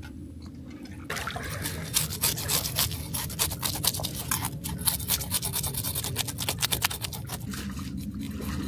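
Fish being scaled and cleaned with a knife: quick, irregular scraping strokes that start about a second in and carry on.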